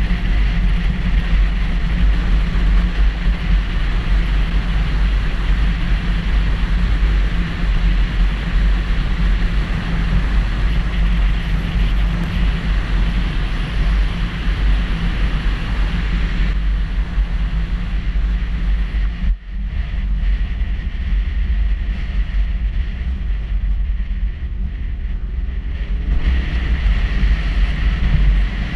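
Wind buffeting the microphone of a GoPro action camera on a moving motorcycle at road speed, a steady heavy rumble with the bike's running noise under it. The rumble eases briefly about two-thirds of the way through, then returns.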